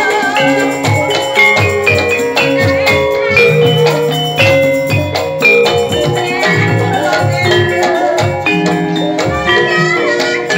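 Javanese gamelan playing live: bronze bar metallophones and kettle gongs ring out a dense, steady melody over low struck notes.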